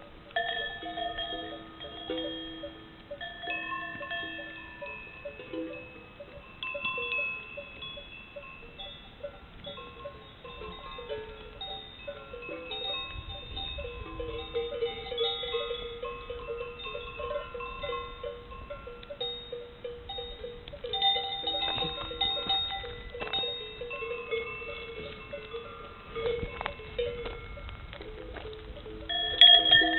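Cowbells on a herd of cattle, many bells of different pitches clanking irregularly with long ringing tones that sound like gamelan gongs and bowls. About halfway through, one bell jangles quickly and steadily for several seconds, and a loud clang comes just before the end.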